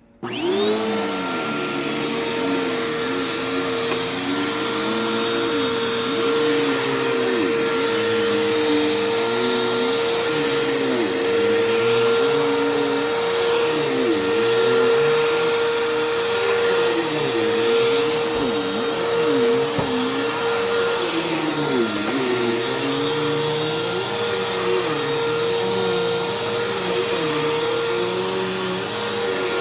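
Bissell PowerForce Helix upright vacuum cleaner switched on, its motor spinning up within the first second and then running steadily with a high whine. Underneath, a lower hum rises and falls every second or two.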